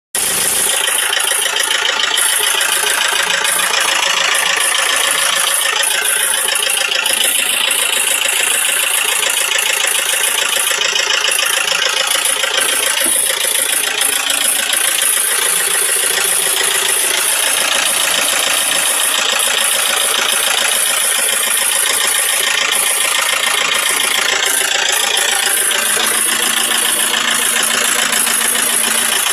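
Isuzu 4JG2 four-cylinder diesel engine running with a loud, steady metallic clatter, which the owner takes for the valves striking the pistons.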